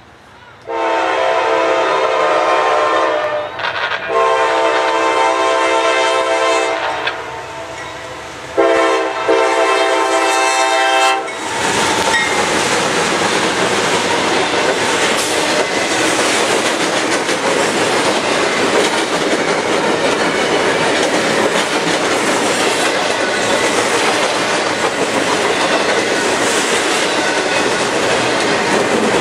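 A CSX GE CW40-8 locomotive's air horn sounds the grade-crossing signal, two long blasts, a short one and a long one. As the horn stops, the intermodal train's cars roll past with a steady loud rumble and clatter of wheels on rail.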